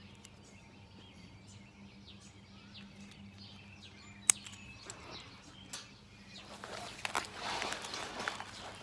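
Faint birds chirping in the background, a single sharp click about four seconds in, then rustling and clicking of small kit items and packaging being handled on a metal table, louder over the last couple of seconds.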